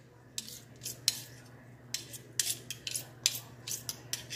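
Metal spoons clinking and scraping against a ceramic bowl and against each other as thick biscuit batter is scooped out, in short irregular strokes every half second or so. A faint steady low hum sits underneath.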